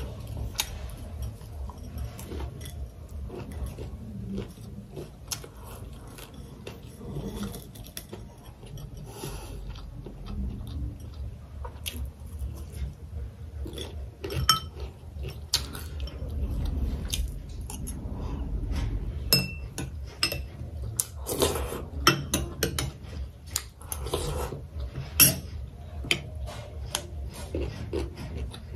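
Close-miked eating: chewing, with a metal spoon clinking and scraping against a ceramic bowl and a glass cup, and scattered sharp clicks from tableware throughout.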